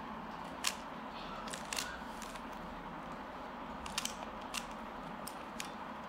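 Plastic layers of a 3x3 Rubik's cube being turned by hand: a few irregular sharp clicks and clacks over a steady faint hiss.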